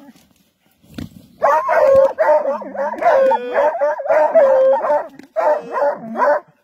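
Hunting hounds baying and yelping at quarry holed up in a burrow. After about a second and a half of near quiet, a nearly unbroken run of high, overlapping bays and yelps.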